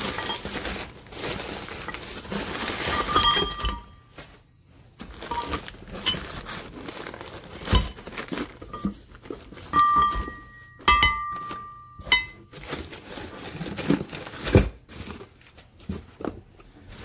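Kraft packing paper being crumpled and pulled out of a cardboard box, then a plastic bag of nuts and bolts and metal brackets handled. The crinkling is dense for the first few seconds, then gives way to scattered knocks and a few short metallic rings.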